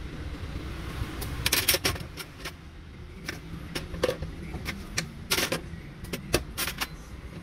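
A metal spoon and knife scraping and clicking against fruit, a plastic jug and a cutting board: a run of sharp scrapes and taps about a second in, single clicks after it, and another cluster from about five seconds in. A steady low rumble of street traffic runs underneath.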